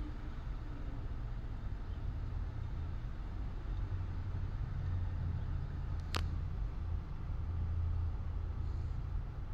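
Steady low rumble inside a car cabin, with one sharp click about six seconds in.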